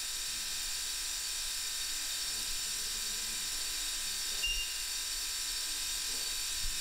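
Steady hiss of gas flowing through a gas pressure regulating station, with a brief high chirp and a soft bump about four and a half seconds in.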